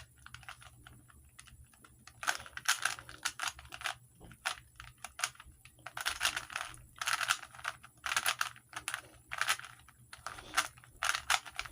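Rubik's cube being turned quickly by hand, its plastic layers clicking and clacking in irregular quick flurries.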